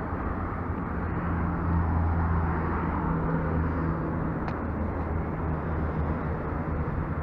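A motor vehicle's engine running steadily with a low hum, over outdoor background noise. It gets a little louder between about two and four seconds in.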